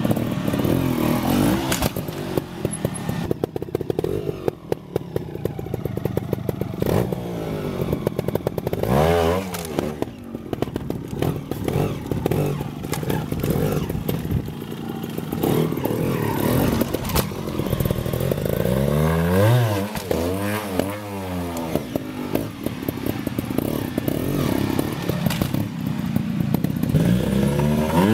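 GasGas 300 Racing trials bike's two-stroke single-cylinder engine running at low revs with sharp throttle blips, the revs shooting up and falling back several times. Clattering knocks from the bike's chassis and tyres hitting the concrete block come through alongside.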